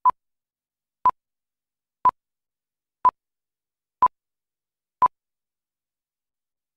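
Six short electronic beeps at one steady mid pitch, one a second, then silence.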